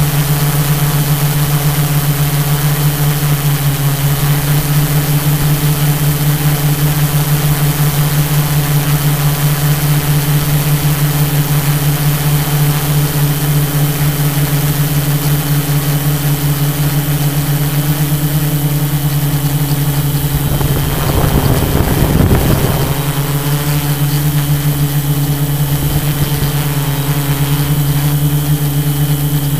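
Tarot 680 Pro hexacopter's six electric motors and propellers humming steadily in flight. About two-thirds of the way through, a brief rush of noise comes in and the hum wavers.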